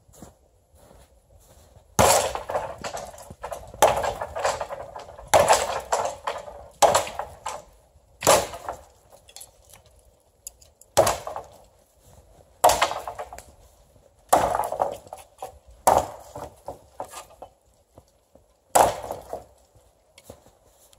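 An axe chopping into a dead leaning tree trunk: about ten sharp wooden strikes, roughly one every second and a half with two short pauses. He is cutting into the trunk to weaken it so it can be snapped off.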